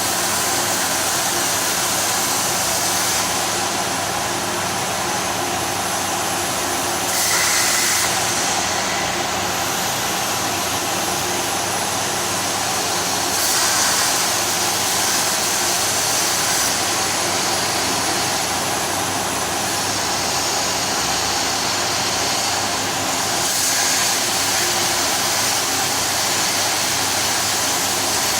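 CNC plasma cutting machine running: a steady, loud hiss over a low hum with several steady tones, brightening briefly every several seconds.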